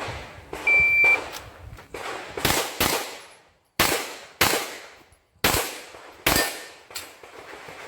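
About a dozen pistol shots fired in quick succession, some close together in pairs, each with a short echo. A brief high beep sounds about a second in.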